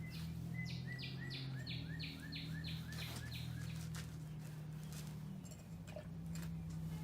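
A songbird singing a run of about ten quick, evenly repeated notes that stops about halfway through, over a steady low hum.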